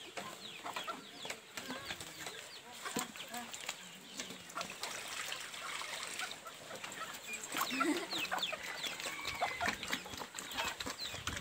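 Farmyard chickens clucking and chirping in short, quick calls, with pigs eating feed slop at a wooden trough.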